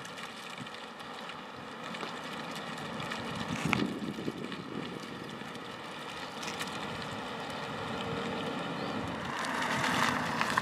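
Volkswagen e-Golf electric car rolling across concrete, a steady tyre-and-road noise mixed with wind on the microphone. A brief knock about four seconds in is the loudest moment.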